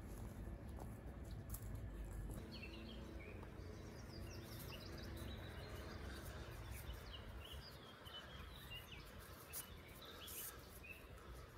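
Faint woodland birdsong, many short chirps from several small birds, over a steady low rumble, with light scratchy rustles from cord being handled.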